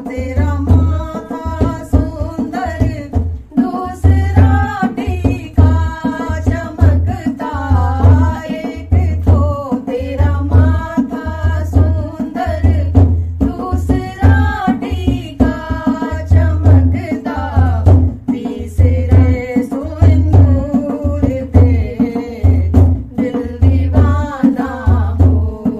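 Hindu devotional song (devi kirtan) to the goddess Durga: a voice singing a melody over a steady, repeating deep drum beat with tabla-like percussion.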